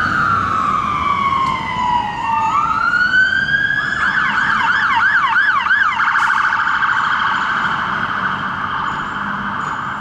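Electronic siren on a responding Emergency One turntable ladder fire engine. It plays a slow wail that falls and then rises, switches to a fast yelp of about two and a half sweeps a second for two seconds, then holds a long steady tone, growing slightly fainter toward the end.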